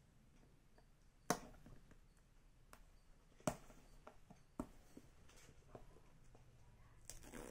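Hands handling a cardboard smartphone box, giving three sharp clicks in the first five seconds, with fainter taps between them and a light rustle near the end.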